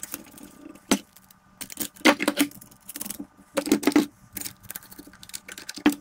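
Steel bolts clinking and rattling against a steel flange as they are pushed through its bolt holes, in several short bursts of metallic clinks.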